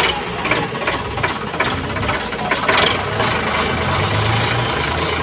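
Tractor diesel engine idling, a steady low hum with a rough clatter over it.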